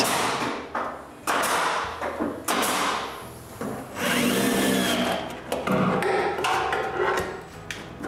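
Cordless drill running in several short runs of about a second each, driving screws into wood, with a brief pause between them.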